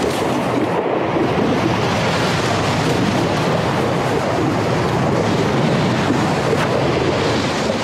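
Underwater hydrophone recording of a melting Arctic glacier: a steady, dense hiss with a few sharper clicks, the noise of trapped air bubbles bursting out of the melting ice.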